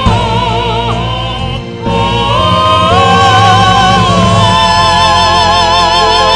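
Vocal ensemble singing long held notes with wide vibrato, in several parts over a steady low accompaniment. About two seconds in it swells louder, and the voices step up to higher sustained notes.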